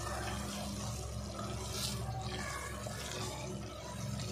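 Wooden spatula stirring thick, wet beef keema masala in an aluminium pressure cooker to mix in the added salt, a soft wet scraping over a steady low hum.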